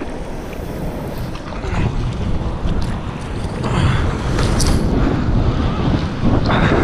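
Seawater rushing and splashing along a surfboard moving through choppy water, with wind buffeting the microphone; the splashing swells louder about four seconds in and again near the end.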